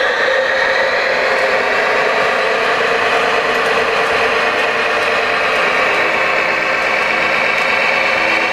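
Radio-controlled construction model's electric drive and gears whining steadily, the pitch creeping slowly upward.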